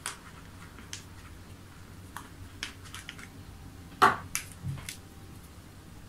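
Scattered small clicks and taps of hands handling a small plastic in-line air filter, a bar of soap and rubber hose, as the filter is soaped and the hose is worked onto it. The loudest click comes about four seconds in, with two softer ones close after it.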